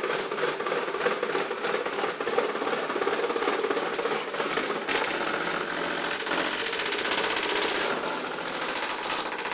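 Fan running with a fast mechanical rattle. It turns harsher and hissier about five seconds in and eases a little near the end.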